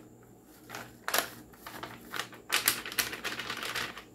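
Paper packet of Bisquick biscuit mix crinkling and rustling in the hand as the dry mix is shaken out, in a quick, uneven run of rustles starting about a second in.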